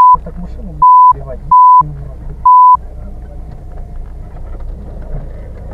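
Four short, loud censor bleeps, a steady one-pitch tone each lasting about a quarter of a second, masking spoken words: one right at the start, one about a second in, one near 1.7 seconds and one near 2.6 seconds. Snatches of talk come between them, and a vehicle engine runs low underneath throughout.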